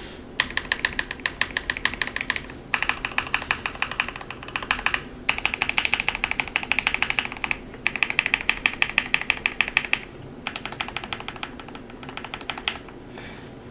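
Fast typing on a Keychron Q1 mechanical keyboard with lubed Gateron Ink Black linear switches: five quick runs of keystrokes, each lasting about two seconds, with brief pauses between them.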